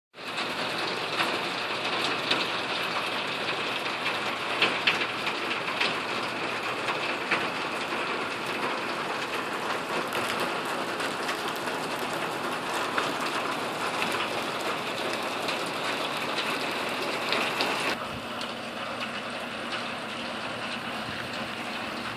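Steady rain pattering, with many scattered sharper drops. It becomes quieter about eighteen seconds in.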